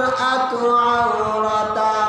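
A man chanting a melodic Arabic recitation in a solo voice, holding long drawn-out notes.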